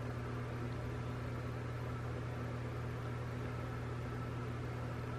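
Steady low hum with a faint even hiss: background room tone with no distinct sounds.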